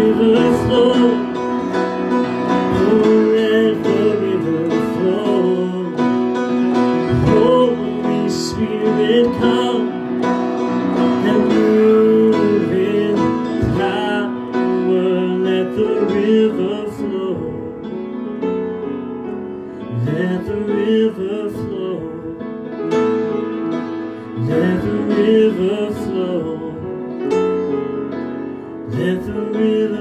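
A man singing a worship song while accompanying himself on piano, with held chords under the melody.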